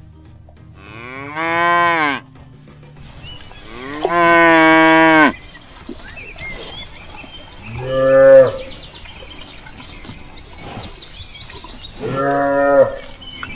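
Cows mooing: four separate moos, the second the longest.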